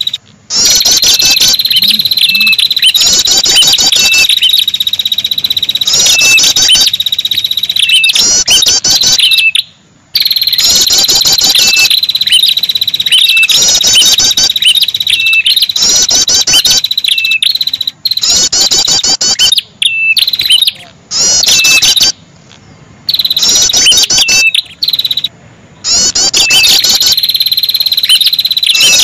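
Ashy tailorbird (prenjak kepala merah) lure-call recording: loud, rapid high-pitched trilled phrases repeated over and over about every second and a half, over a near-continuous high trill. A few short silent gaps break it, around a third of the way in and again near two-thirds.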